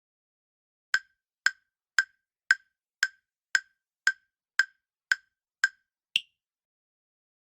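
Countdown timer sound effect: ten even ticks, about two a second, ending on one higher-pitched tick.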